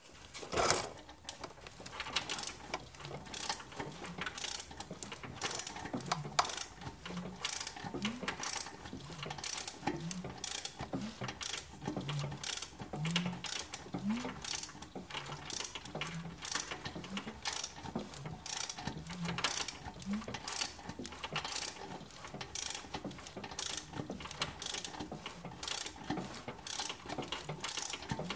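Mechanical clicking, about one to two sharp clicks a second at an uneven rhythm.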